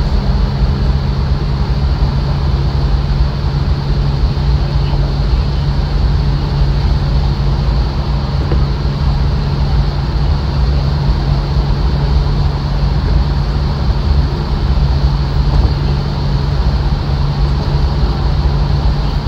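Steady engine drone and road noise inside a moving car's cabin, a low hum with a constant hiss of tyres and air, unchanging throughout.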